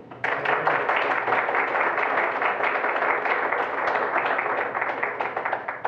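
An audience applauding: many hands clapping at once, starting suddenly and stopping near the end.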